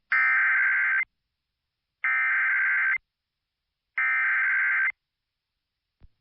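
Emergency Alert System SAME digital header on NOAA Weather Radio: three identical bursts of buzzy data tones, each about a second long and a second apart. It encodes the start of a new Fire Warning alert.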